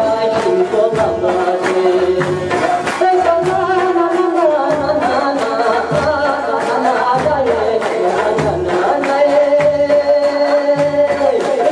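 Chitrali folk song performed live: a man singing long, gliding notes over plucked Chitrali sitars and a steady hand-drum beat.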